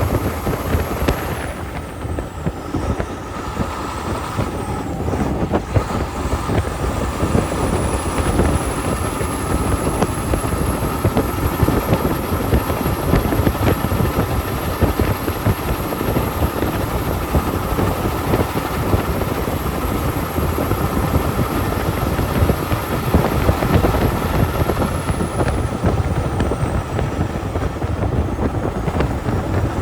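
Logging truck running steadily under way, its engine and road noise continuous and dense. A thin high whine drops out about a second in, returns around seven seconds in, and fades again near the end.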